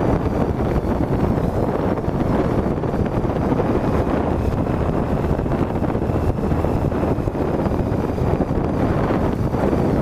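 Triumph Tiger 800 XCx motorcycle, its three-cylinder engine running steadily as it is ridden along a rough dirt track, under a heavy rumble of wind on the microphone.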